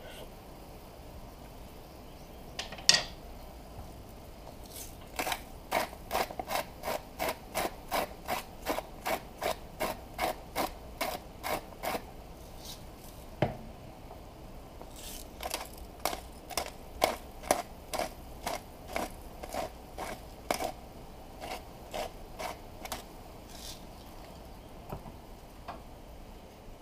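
Hand-twisted salt and pepper grinders grinding in two runs of rapid, rhythmic crunches, about three a second, with a sharp knock before each run.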